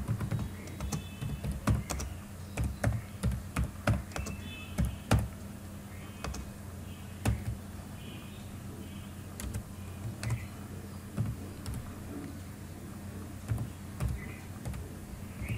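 Typing on a computer keyboard: irregular key clicks, quick and thick for the first five seconds, then sparser, over a steady low hum.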